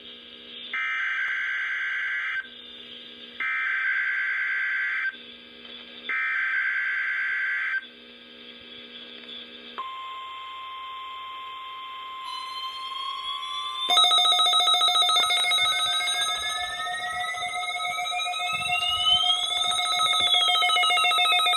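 NOAA Weather Radio SAME alert header: three short bursts of screechy data tones, each under two seconds, about a second apart, as the weekly test signal is sent. Then the Midland weather alert radios set off their alarms: a steady beep tone joined by several others, with a siren-like tone that rises slowly to a peak near the end and then falls.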